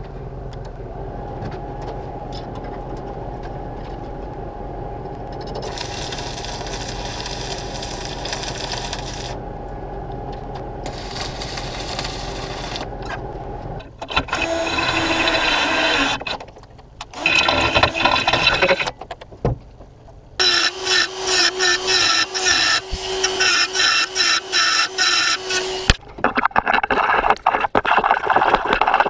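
Metalworking sounds in turn: a steady electrical hum with two stretches of crackling from stick welding, then a power drill running in stop-start bursts as it bores into welded scrap steel, and a noisy hiss near the end.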